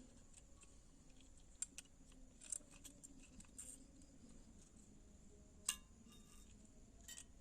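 Near silence broken by a few faint, short clicks and taps, from handling the lamp's wires and small parts while they are fitted together. The loudest click comes about two thirds of the way through.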